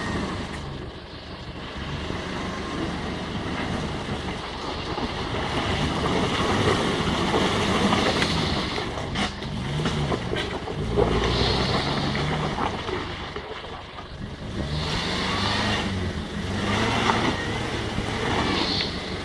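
Off-road 4x4's engine running under load, its revs rising and falling several times.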